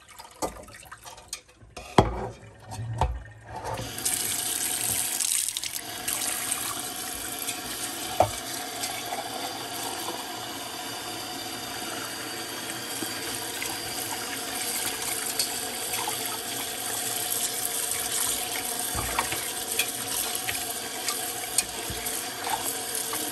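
Kitchen tap running steadily onto a raw whole chicken held in a stainless steel pot, the water splashing in the pot as the bird is rinsed; the tap comes on about four seconds in. Before that there are a few knocks and splashes as the soaking brine is tipped out of the pot into the sink.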